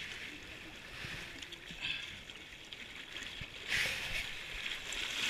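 Shallow waves washing and sloshing over shoreline boulders, with one louder surge of water about four seconds in.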